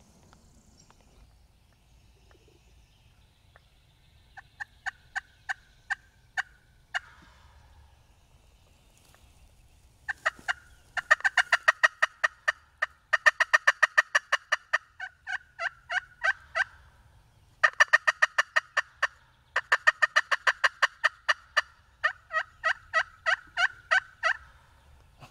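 Turkey call worked aggressively, imitating a hen: long runs of sharp, rapid notes at about seven a second, loud and close, broken into several bursts with short pauses, the longest running about six seconds. A shorter, quieter run of notes comes first.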